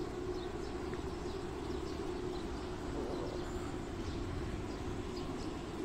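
Outdoor park ambience: small birds chirping now and then over a steady low rumble and a faint constant hum.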